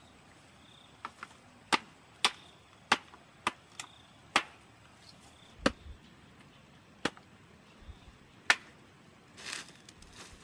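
Machete chopping a length of bamboo: about a dozen sharp, separate strikes at uneven intervals, then a brief rustle near the end.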